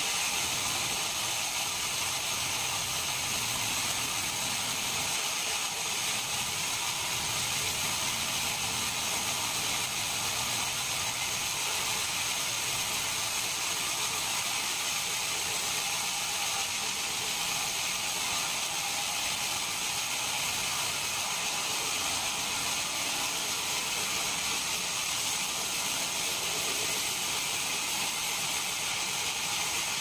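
Large band sawmill running with its blade ripping lengthwise through a mahogany cant: a steady, high hiss with a faint whine.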